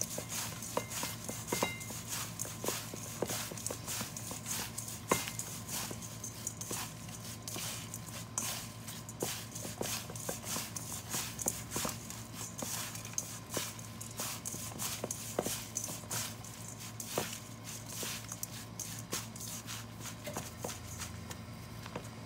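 Gloved hands tossing and squeezing sliced apple, vegetables and salted kelp with seasoning in a stainless steel bowl: irregular wet rustling with frequent light clicks against the bowl, over a steady low hum.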